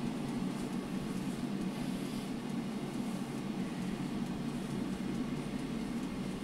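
Air fryer running mid-cook, its fan giving a steady low hum.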